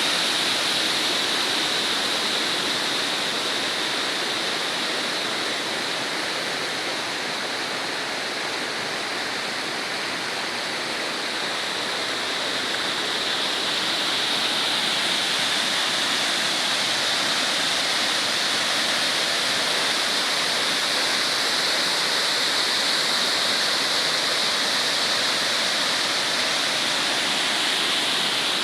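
Waterfall: water falling and rushing in a steady, dense hiss, dipping slightly in level for a few seconds before the middle.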